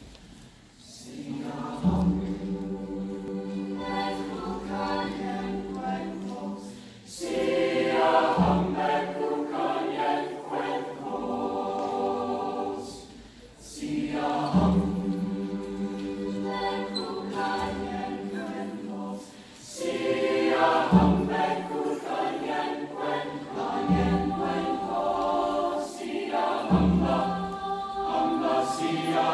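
Mixed-voice high school chamber choir singing in harmony, in phrases of about six seconds with short breaks between them, each phrase opening on a deep low note.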